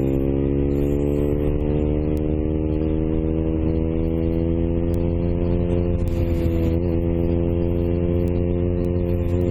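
Motorcycle engine running under way as the bike rides along, its pitch rising slowly over the first few seconds and then holding steady.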